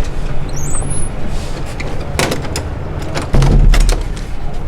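Busy street traffic noise, with a few sharp clatters about two seconds in and a heavy low rumble a little after three seconds.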